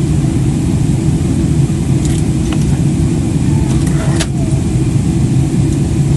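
Aircraft cabin noise in flight: a steady, loud low rumble of engines and rushing air, with a few faint clicks a couple of seconds in and again about four seconds in.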